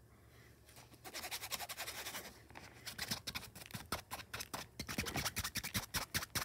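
Plastic action figures being handled and knocked against each other and the tabletop: a rapid, uneven run of small clicks, taps and scrapes, starting about a second in and getting busier from about three seconds in.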